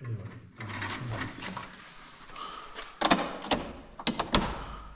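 A cluster of sharp knocks and clicks, as of something hard being handled or bumped, about three seconds in, with a fainter low rumble before it.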